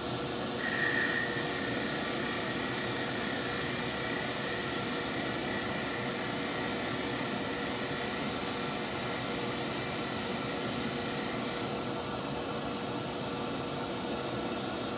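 A small benchtop metal lathe's motor running as its cutter shaves a spinning poplar dowel in clearing cuts, with a shop vacuum running steadily beside it to pull off the sawdust. The combined sound is a steady whoosh with a faint high whine that grows stronger about a second in.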